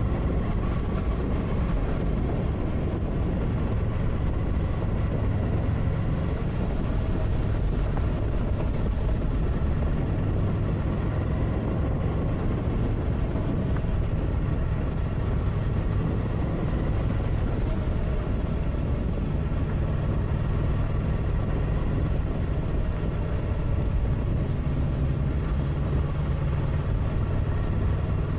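Motorcycle engine running steadily at cruising speed, with tyre noise from riding on a gravel road.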